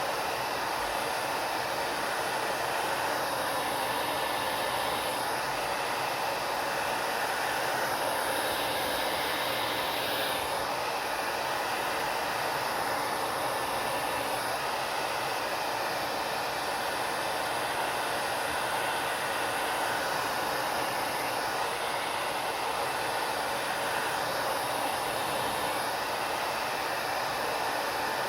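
Hand-held hair dryer running steadily, a constant rush of blown air whose tone shifts slightly every few seconds.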